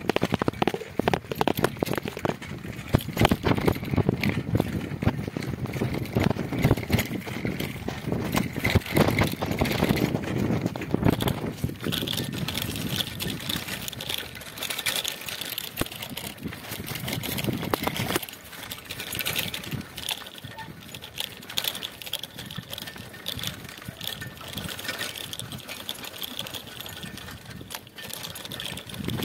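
Bicycle ridden over a rough, stony dirt track: the tyres crunch on loose stones and the frame and fittings rattle over the bumps. The rattling is dense for the first dozen seconds, then the ride runs smoother and quieter.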